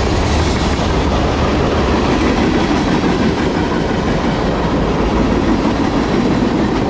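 A CSX manifest freight train's cars, covered hoppers then tank cars, rolling past close by: the loud, steady noise of steel wheels running on the rails.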